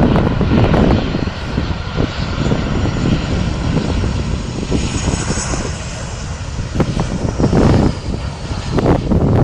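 Jet airliner passing, its engines making a steady rumble with a high whine that slowly falls in pitch around the middle. Gusts of wind buffet the microphone.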